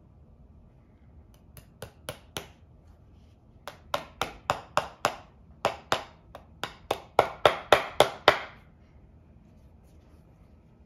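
Lasting pincers' hammer face tapping on a leather insole: about twenty sharp taps, a few at first, then a quicker run of two to three a second that grows louder before stopping.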